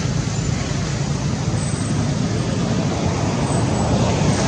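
Steady, even background noise with no distinct events.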